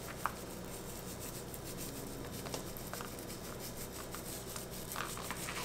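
Faint, scattered light ticks and rustles of dried cornflower petals being rubbed between gloved fingers and sprinkled onto soft soap, over a low steady hum.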